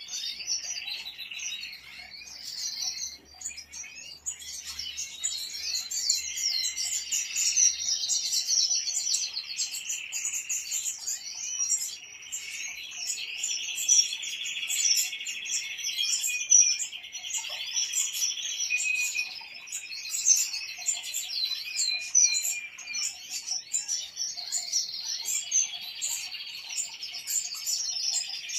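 European goldfinches singing together: continuous fast twittering and chirping, with buzzy trills running through the middle.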